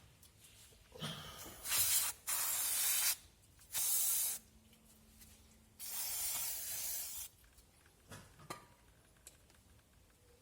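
Aerosol cleaner sprayed in four hissing bursts onto a rear drum brake assembly, cleaning it. The last burst is the longest, about a second and a half.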